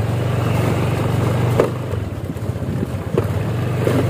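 Motorbike engine running steadily at low road speed, easing off for a moment about halfway, with a couple of knocks as the bike rides over the rough stone road.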